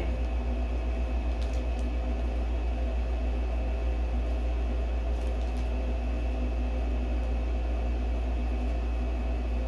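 Steady low mechanical hum of room background noise, with a few faint crinkles of a plastic bag as a graded comic slab in it is handled.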